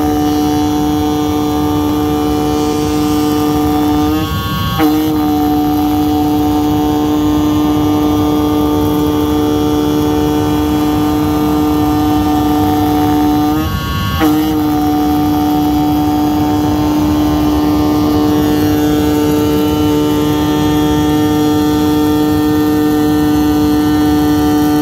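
CNC oscillating knife cutting machine running, its knife head giving a steady buzzing hum as it cuts sheet material, over a low rushing noise. The hum briefly drops out and picks back up twice, about four and fourteen seconds in.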